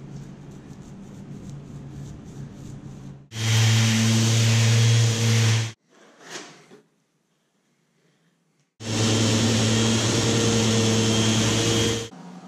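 A machine's motor running with a steady low hum, loud, in two stretches of two to three seconds each that start and stop abruptly, with a near-silent gap between them. A fainter steady hum fills the first few seconds.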